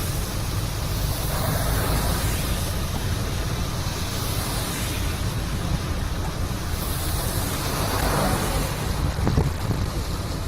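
Steady rush of a river in flood, with wind buffeting the microphone in a low, uneven rumble.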